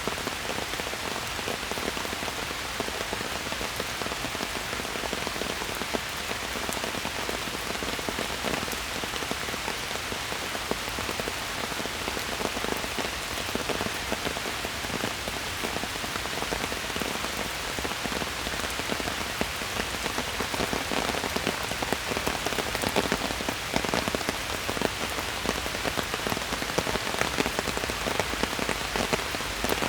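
Steady rain falling in a forest, with the close patter of many individual drops hitting leaves and surfaces.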